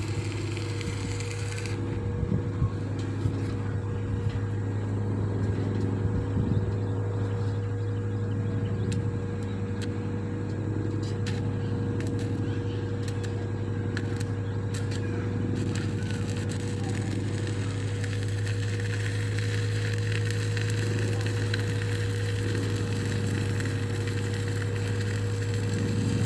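Welding machine humming steadily, with scattered sharp crackles during the first half.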